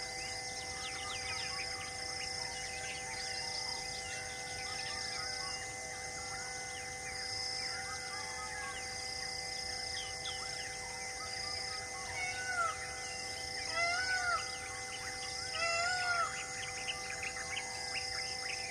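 Forest birds chirping over a steady hum of held tones and a high pulsing insect call repeating under a second apart; three louder, arched bird calls stand out in the second half.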